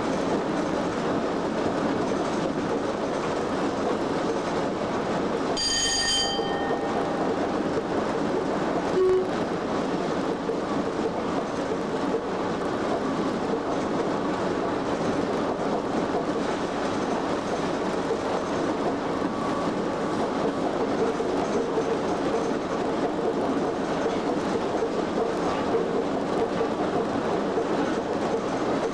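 Cab noise of Class 87 electric locomotive 87033 running at speed: a steady rumble of wheels on rail with rushing air. About six seconds in, a short ringing tone sounds once, and a brief knock follows about three seconds later.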